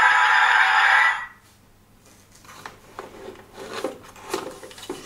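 Electronic music cuts off abruptly about a second in. It is followed by light scraping, rubbing and a few soft knocks as a firecracker is handled in a toy claw machine's plastic prize chute.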